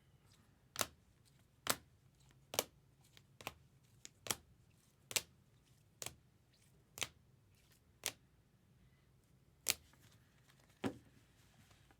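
Sharp single clicks, about a dozen spaced roughly a second apart, as trading cards are set down one at a time on a table.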